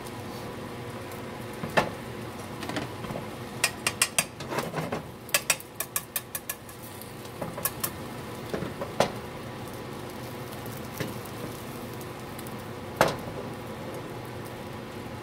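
Metal tongs clicking and tapping against a nonstick frying pan while an omelet cooks, over a steady hum. There is a quick run of clicks in the middle and one louder knock near the end.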